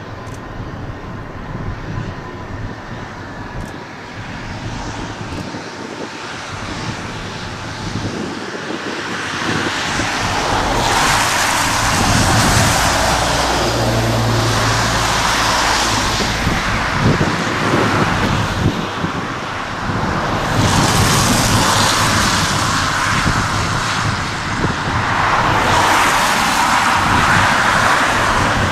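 Boeing 747-400 freighter on final approach: its four jet engines make a steady rushing noise that grows louder about a third of the way in as the aircraft comes in low, with swells of rushing hiss.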